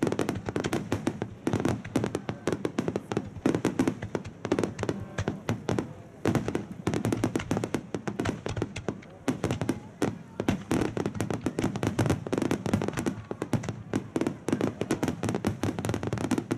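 Wide starmine fireworks barrage: aerial shells launching and bursting in rapid, overlapping succession, a dense unbroken run of sharp bangs and booms.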